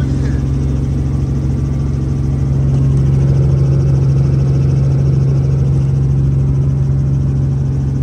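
Robinson light helicopter's engine and rotors, heard from inside the cabin as a steady low hum, during takeoff and climb-out; the sound swells slightly about three seconds in.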